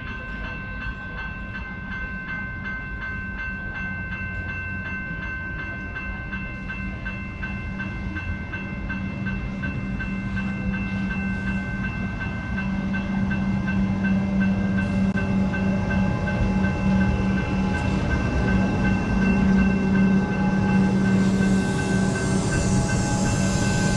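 Suburban train approaching, growing steadily louder, over a few steady high tones, with a rising whine near the end.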